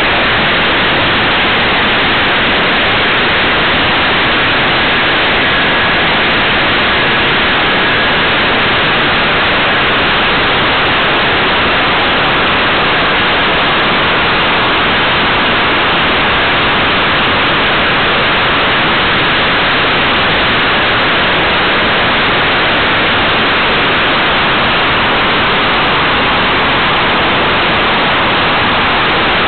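Steady, loud rushing hiss of airflow over the small onboard camera's microphone on a model glider in flight.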